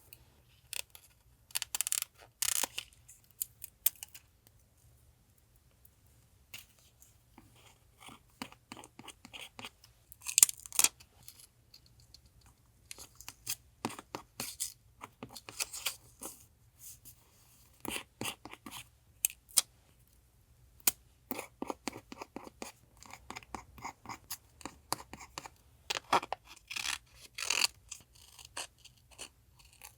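Paper being handled for collage journaling: irregular bursts of crisp rustling, snipping and scratching, separated by short pauses.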